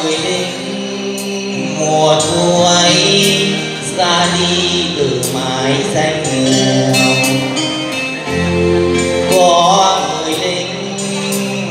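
Male singer performing a Vietnamese song into a microphone over backing music with a steady beat.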